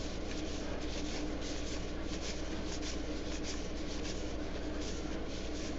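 Baseball trading cards being flipped through by hand, each card sliding off the stack across the next, with a soft papery swish a few times a second, over a steady low hum.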